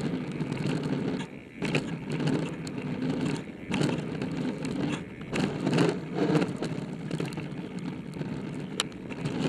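Mountain bike rolling fast over a rough gravel trail, heard from a camera on the bike or rider: a continuous rumble of tyres and frame with frequent sharp knocks and rattles.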